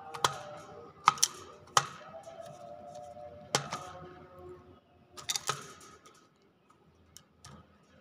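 Sharp clicks and taps from a caged hill myna close to the microphone, about seven in the first six seconds, some in quick pairs, over faint held tones.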